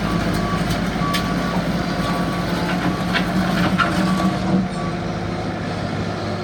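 Bobcat S770 skid steer's diesel engine running with its backup alarm beeping about once a second while it reverses, amid a few sharp clatters. The beeping stops about 4.5 seconds in and the engine runs on a little quieter.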